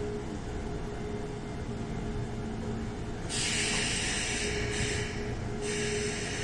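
Kintetsu 21000 series 'Urban Liner Plus' electric train standing at the platform with a steady hum, then about halfway through a loud hiss of compressed air starts, breaking off briefly twice, as the train readies to depart.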